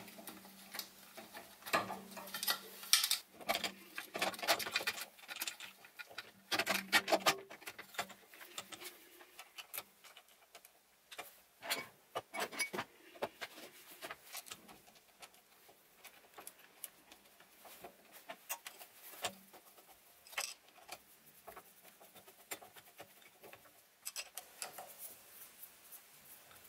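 Rapid small metallic clicks, taps and clatters from hand-fitting metal parts back onto a mini lathe's saddle, apron and carriage handwheel. They are busiest in the first several seconds and thin out into scattered light taps.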